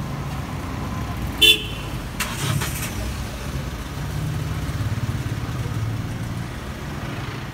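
SUV engine running steadily close by as the car pulls away, with one short horn toot about one and a half seconds in.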